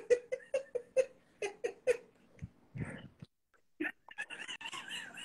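A person's voice in short, broken bursts separated by brief dead gaps, over a video-call connection.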